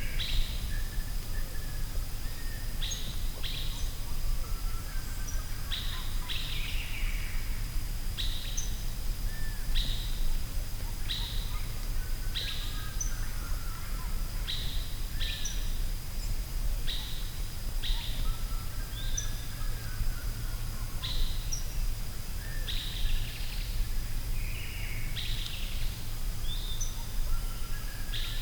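Forest ambience: birds giving short, sharp chirps, about one every second or so, with softer warbling calls between them, over a steady low rumble and a faint, steady high-pitched tone.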